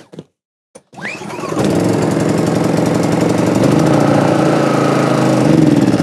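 Petrol inverter generator (MXR3500) being started: about a second in the engine catches with a rising note and runs steadily for about four seconds, then starts to die near the end. It is stalling for lack of choke on a cold start.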